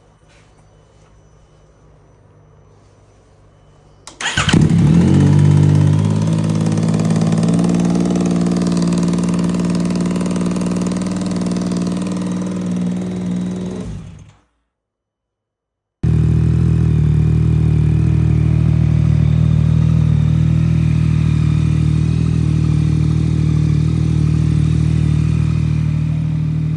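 Yamaha MT-09 inline-three engine cranked briefly and starting about four seconds in, then idling steadily until it is shut off about ten seconds later. After a break of silence it is heard idling steadily again. This is the bike that came in with a bad exhaust leak from a crunched header gasket.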